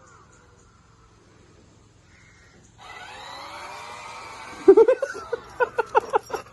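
Small electric drive motors of a remote-control toy vehicle whirring, their pitch rising as it sets off a little under three seconds in. Near the end, a man laughs in short, rapid bursts.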